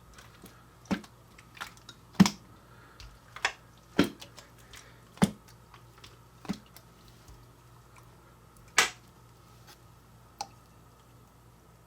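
Homemade Coca-Cola slime being squeezed and worked by hand, giving irregular sharp pops and clicks, about a dozen, the loudest about two seconds in and again near nine seconds.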